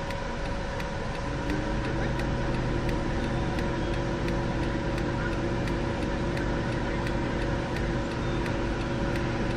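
A motor running steadily: a low hum that comes in about a second in, rises slightly, then holds an even pitch.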